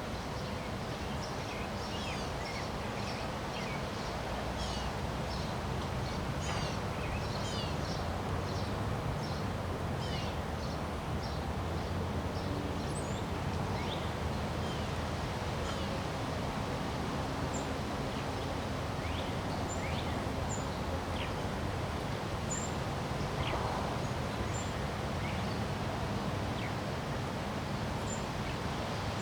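Wind blowing steadily through trees with leaves rustling, and birds calling over it: a fast run of quick descending chirps for about the first ten seconds, then sparser chirps and short high peeps.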